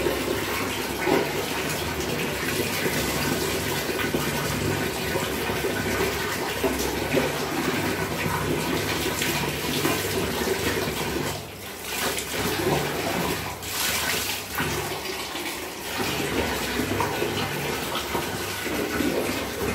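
Water pouring and splashing steadily over a wet dog during its bath, dropping off briefly twice about halfway through.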